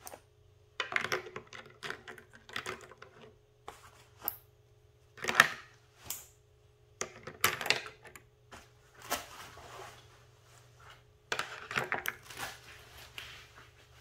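Small hard everyday-carry items (a pen, a folding knife, a flashlight, a wallet) set down one after another on a wooden table and onto a plastic pistol holster, clicking and clattering in about half a dozen short clusters with pauses between.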